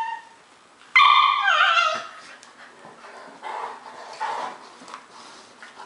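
Rhodesian Ridgeback and Dogo Argentino puppy at play: one dog gives a loud, high whining yelp about a second in that slides down in pitch at its end, followed by a few softer, short rough sounds.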